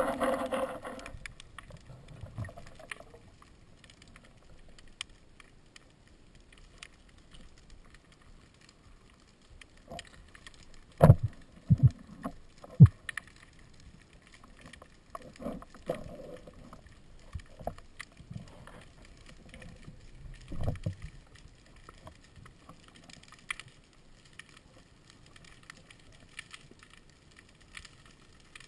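Underwater sound picked up through an action camera's housing: faint water noise with scattered clicks and knocks, the loudest three sharp knocks a little over ten seconds in. Background music fades out in the first second.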